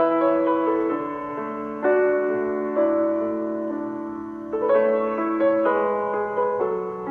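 Background piano music: slow, gentle chords struck one after another, each ringing and fading before the next.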